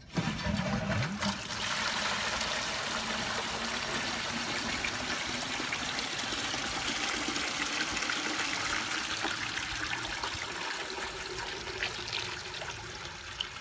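Water pouring fast from two wide suction hoses into plastic 5-gallon buckets, fed from a full IBC tote during a flow-rate test of the supply line. It starts suddenly with a brief low gush as the valve opens, then runs as a steady rushing splash that grows somewhat quieter near the end as the buckets fill.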